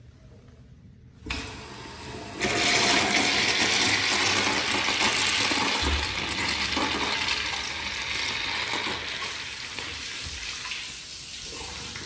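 American Standard Allbrook urinal's flush valve opening suddenly about a second in, then water rushing loudly into the bowl and slowly easing off. The urinal is not draining, so the bowl overflows and water spills over the front lip onto the tile floor near the end.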